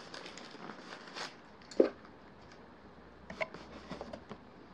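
Handling noises as a camcorder is lifted out of its cardboard box: one sharp knock about two seconds in, then a few soft clicks and rustles a little later.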